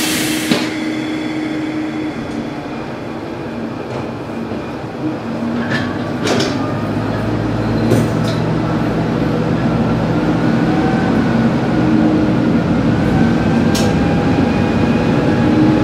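Sanriku Railway diesel railcar pulling away from a station. The engine hums steadily, then its low note swells about seven seconds in as the railcar accelerates. There is a brief hiss of air right at the start and a couple of sharp clicks a little before the engine builds.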